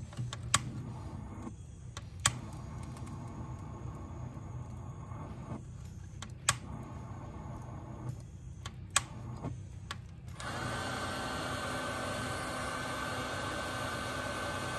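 Bison 420 Airlighter's butane torch flame burning into lump charcoal with a steady low hum, broken by a few sharp clicks. About ten seconds in, the lighter's built-in air blower switches on: a steady fan rush with a fixed high whine.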